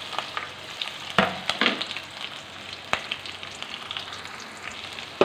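Green chillies and chopped ginger sizzling steadily in hot ghee in a steel kadai, with three sharp knocks of a utensil against the pan.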